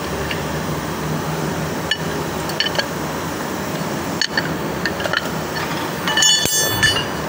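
Small metal clicks and taps of hand tools against engine parts while a fuel injector is being removed. A quick run of ringing metallic clinks near the end is the loudest part, over a steady background hum.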